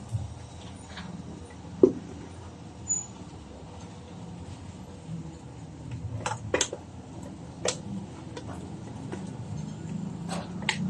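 Scattered sharp clicks and light knocks, a few seconds apart, over a low steady hum.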